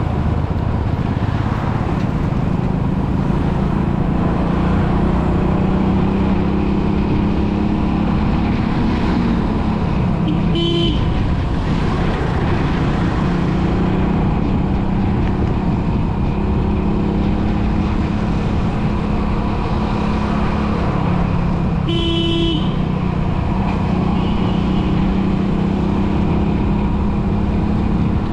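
Steady road traffic and engine hum heard from a moving vehicle, with a vehicle horn honking twice: briefly about eleven seconds in, and a little longer about twenty-two seconds in.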